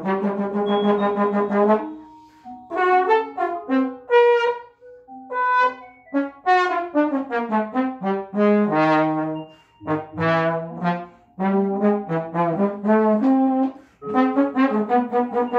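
Trombone improvising a string of short pitched notes that jump between registers, with brief gaps between phrases.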